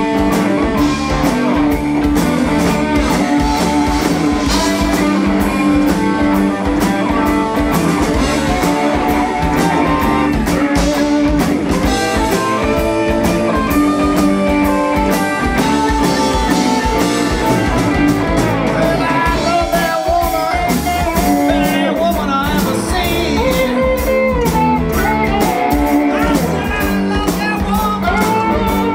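A live rock band playing: electric guitars, bass guitar, keyboard and drum kit, with a man singing in the later part.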